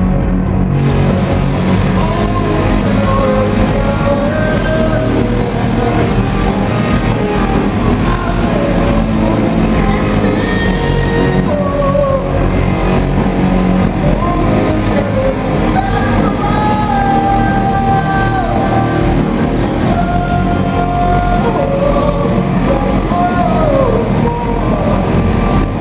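Rock band playing loud live, with a sung vocal line bending and wavering over guitars, bass and drums.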